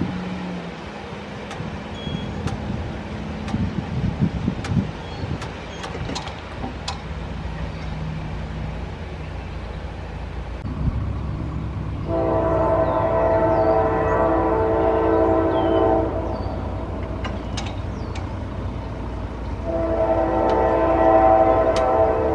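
Approaching CSX diesel freight locomotive sounding its multi-note air horn in two long blasts, the first about four seconds long and the second starting near the end, for the grade crossing. A low diesel rumble sits beneath it.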